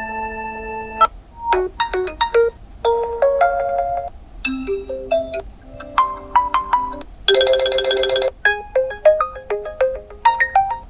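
Realme GT2 Pro default alarm tones previewed one after another: short melodic snippets of chime-like and plucked notes, a new tone about every second, with brief gaps between them. About seven seconds in, a denser, brighter tone sounds for about a second.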